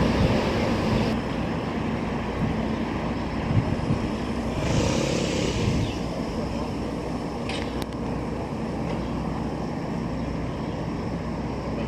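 Steady low engine rumble from a departing ship and its harbour craft, with a brief hiss about five seconds in.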